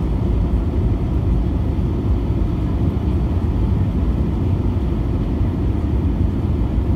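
Cabin noise inside an Airbus A320 during its approach to landing: the steady low rumble of the engines and the airflow over the fuselage, heard from a window seat over the wing.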